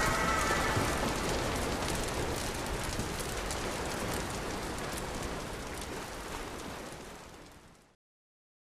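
Wood fire crackling and hissing in a fire pit. It fades out steadily and stops about eight seconds in.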